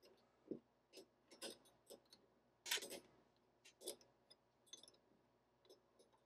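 Faint, irregular small metal clicks and ticks from handling the lathe's ER25 collet and arbor wheel-mount parts, the strongest about three seconds in.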